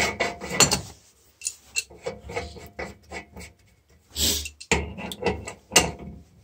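Metal hand tools clinking and scraping as an adjustable wrench is handled and fitted onto the cap of a thermostatic radiator steam trap: scattered sharp clicks and knocks, with a short rasping scrape about four seconds in.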